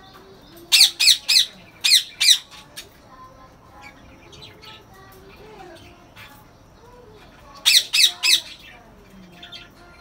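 Caged ring-necked parakeets screeching: a run of about five harsh, shrill squawks a second in, softer chattering calls in between, then another burst of three squawks near the end.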